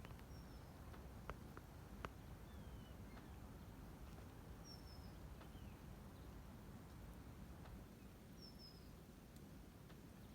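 A bird calling faintly: three short, high chirps that fall in pitch, about four seconds apart, with fainter, lower falling notes between them. Two faint clicks come in the first two seconds.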